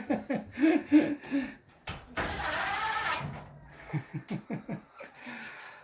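Small electric motor whirring for just over a second, starting and stopping sharply, like a cordless drill/driver run briefly on a dryer panel screw, with talk before and after.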